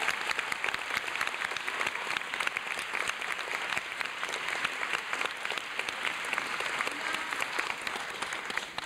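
Audience applauding in a theatre: dense, steady clapping that thins out at the very end.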